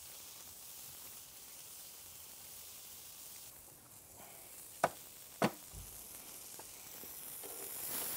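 Ribeye steak sizzling faintly and steadily on a Tuscan grill over wood-fired oven coals, fat dripping onto the embers. Two sharp knocks about five seconds in.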